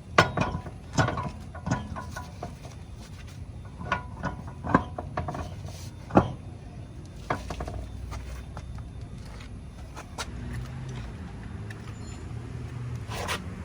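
Irregular sharp metal clanks and knocks, a second or a few seconds apart, from refitting the front wheel and its lug nuts. A low steady hum runs underneath.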